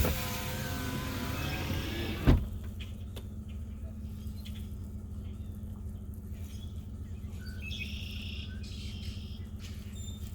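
A click, then about two seconds of a small motor whirring that ends in a sharp knock, followed by a steady low hum. A few bird chirps come near the end.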